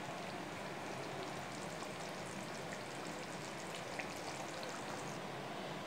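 Garlic kuzhambu, a thick tamarind gravy, simmering in a pot: a steady soft sizzle with small scattered pops. The oil has separated at the surface, the sign that the gravy is cooked.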